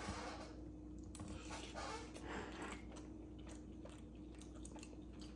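A person chewing a mouthful of baked trout, with soft mouth sounds and a few light clicks of a metal fork on the plate.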